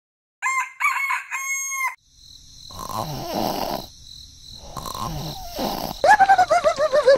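A rooster crowing in three parts, then two long snores. Near the end comes a wavering, falling cartoon-like voice.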